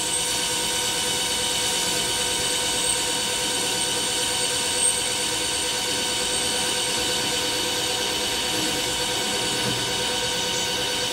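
Metal lathe running at a steady speed while a parting tool is slowly fed through spinning round metal stock, near the end of the parting cut. The sound is a steady hum of several fixed tones over a cutting hiss.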